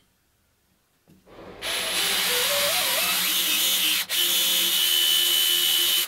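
Hand-held power drill boring into a laminated plywood handle: the motor starts about a second in and runs steadily under load, lets off briefly around two-thirds of the way through, then runs on and stops at the end.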